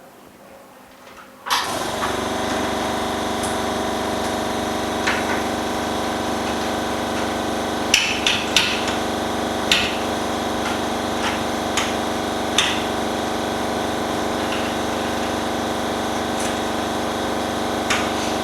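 A polarizer laminating machine's motor switches on about a second and a half in and runs with a steady hum, while a few sharp clicks and taps of parts being handled sound over it.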